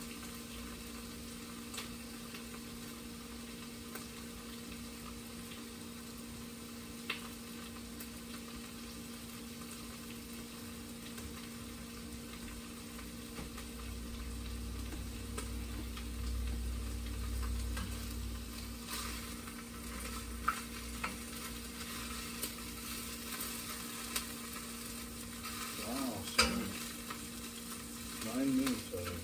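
Food sizzling in a frying pan on a gas stove: a steady frying hiss over a low hum. Toward the end a utensil scrapes and knocks in the pan as the food is turned.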